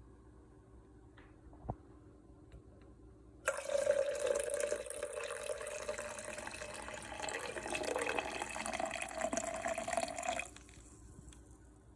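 Liquid pouring into a container for about seven seconds, starting and stopping abruptly, its pitch creeping up as the container fills.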